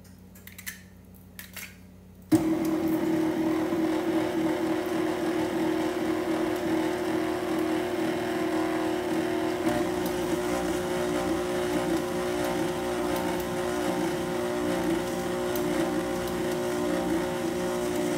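A few light clicks, then about two seconds in an electric mixer switches on abruptly and runs steadily at low speed. Its beater is blending an egg into creamed butter and sugar for pound cake batter.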